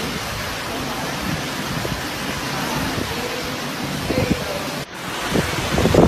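Steady rushing noise of water and wind on the microphone, with faint voices. The sound drops out briefly just before five seconds in, then the rushing returns with a few short louder gusts or splashes.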